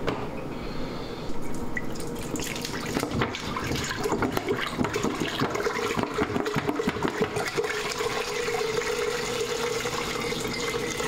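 Water poured from a plastic water bottle into the steel inner pot of an Instant Pot, splashing into the liquid already inside. The pour starts about a second in and takes on a steady hollow tone from about four seconds in.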